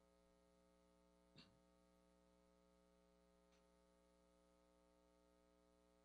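Near silence: a faint steady drone of held tones, with one brief soft sound about a second and a half in.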